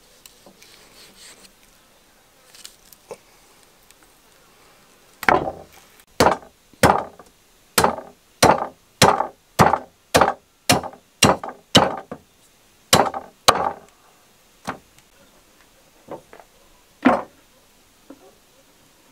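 Cleaver chopping through lamb ribs on a wooden chopping board. About five seconds in comes a quick run of about a dozen sharp chops, roughly two a second, then a few more spaced-out chops near the end.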